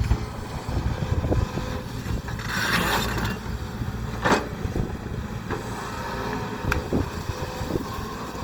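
Heavy machinery's diesel engine running with a steady low rumble, broken by a few metal clanks and short hissing bursts about two and a half and four seconds in.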